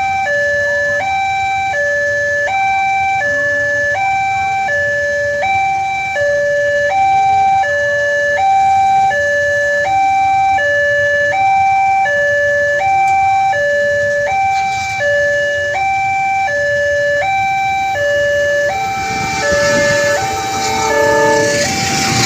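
Railroad level crossing's electronic warning alarm sounding, a steady two-tone signal stepping between a higher and a lower pitch about every 0.6 seconds: the crossing is closed for an oncoming train. In the last few seconds the rushing noise of the approaching train rises under it.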